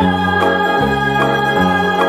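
Background music played on an electronic organ-like keyboard: sustained chords over a bass line that changes note about every half second.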